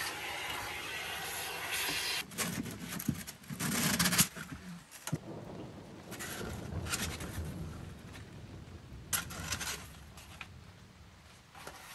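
A vacuum hose sucking dust out of a belt sander: a steady rushing noise that cuts off about two seconds in. Then stiff cloth-backed sanding belts rustle, flap and scrape as they are handled on a wall rack, with a few knocks.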